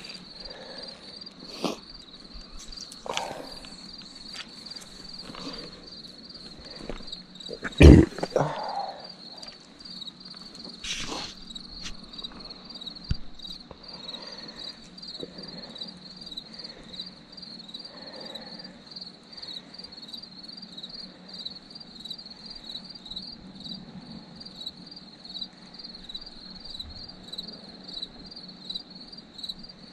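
Crickets chirping steadily in an even, pulsing rhythm, with a few knocks and rustles of gear being handled; the loudest thump comes about eight seconds in.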